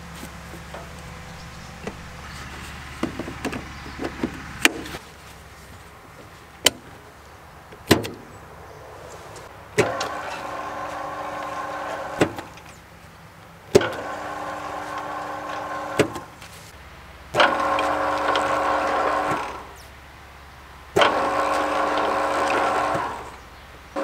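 Sharp clicks of push-button switches on a control box, then the belt conveyor's electric gear motor being switched on and off: four times it runs with a steady whine for about two seconds and stops, each start marked by a click.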